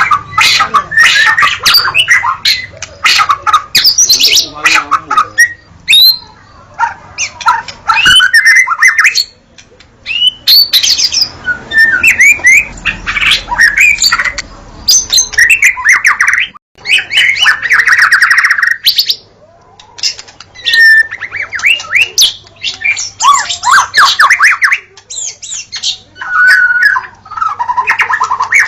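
White-rumped shama (murai batu) singing energetically in varied phrases of clear whistled glides and rapid trills, with short pauses between phrases.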